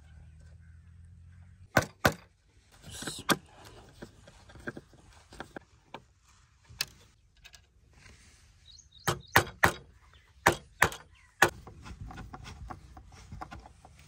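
A metal tower bolt and its screws being handled and screwed on wooden planks: a series of sharp metallic clicks and knocks, clustered about two seconds in and again from about nine to eleven seconds, with light scraping between.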